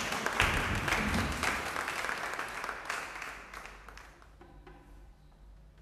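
Audience applauding, a dense patter of many claps that dies away about four seconds in.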